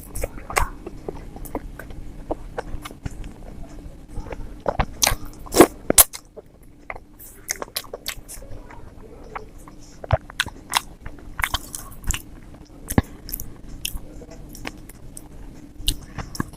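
Close-miked chewing and biting of idli with sambar and chutney: wet mouth sounds broken by many sharp clicks and smacks, loudest about five and a half seconds in.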